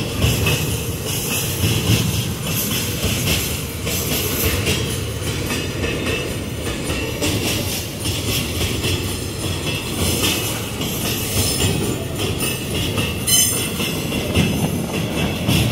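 Empty iron-ore gondola wagons rolling past close by: steel wheels clacking irregularly over rail joints above a steady low rumble, with bursts of high-pitched wheel screech.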